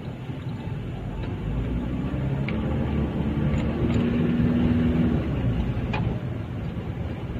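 Motor vehicle engine running in traffic, a low rumble that grows louder through the middle and then eases off.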